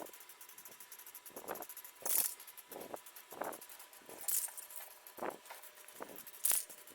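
Aerosol can of gold spray paint sprayed in short hissing bursts, three of them about two seconds apart, with light rattling and clinking in between.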